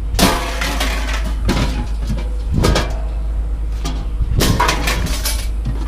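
A series of clattering bangs a second or so apart as scrap is handled and dropped, over a steady low rumble.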